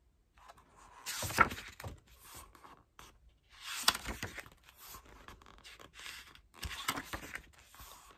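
Glossy photobook pages turned by hand three times, each turn a crisp rustle of stiff paper with a sharp snap.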